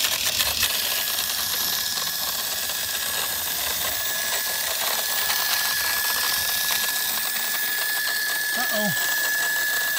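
Small electric motor and plastic gears of a vintage tumbling toy locomotive running, with a steady high whine and a fast fine clatter. The owner takes the sound as a sign that the motor is weak and burned up, or that a gear is out of place or loose.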